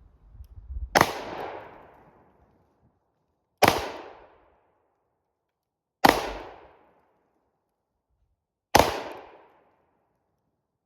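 Four single shots from a 9mm Glock pistol, spaced about two and a half seconds apart, each sharp crack ringing out briefly.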